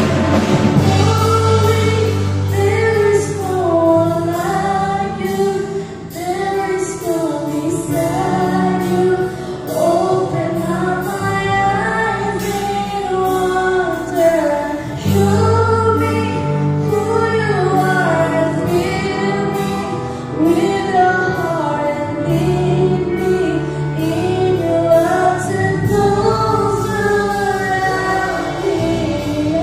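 Live worship band: a woman's lead vocal sings a slow worship song over drums, guitars and keyboard, with regular drum and cymbal strokes keeping the beat.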